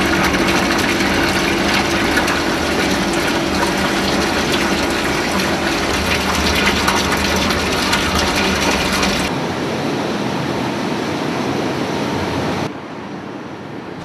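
Tea seed oil pouring in a stream into a metal tank, a dense splashing rush over a steady machine hum. About nine seconds in the sound cuts abruptly to quieter machine noise, which drops again near the end.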